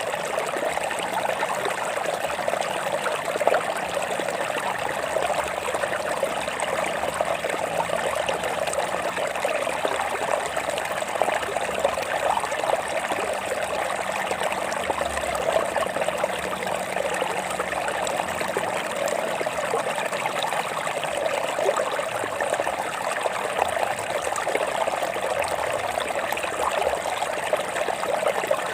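Stream water running steadily over rocks, a continuous trickling flow with no pauses.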